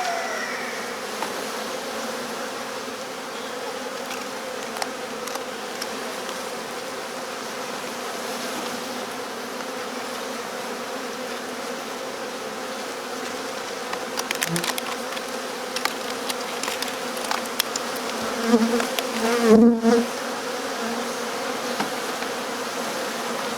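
A honeybee swarm buzzing steadily, many bees flying around together. A run of faint clicks comes about two-thirds of the way in, and the buzzing swells louder twice shortly after.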